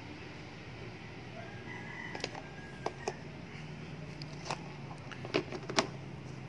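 Clear plastic containers and lids clicking and tapping as they are handled, a handful of sharp clicks, the loudest near the end. A rooster crows faintly in the background a couple of seconds in.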